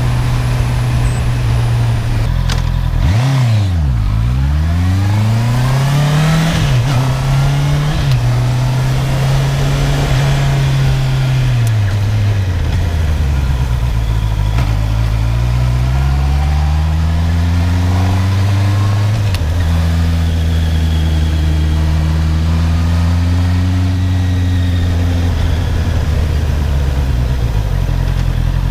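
Honda CB650R inline-four on its stock exhaust, under way, with the engine pitch falling and climbing again and again as the bike speeds up, slows and changes gear. There is a sharp drop in revs about three seconds in, a long easing-off around twelve seconds in, and then a steadier pull back up.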